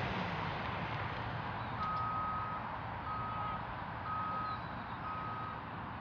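A vehicle's reversing alarm beeping four times at one steady pitch, about once a second, over a constant outdoor rush of noise.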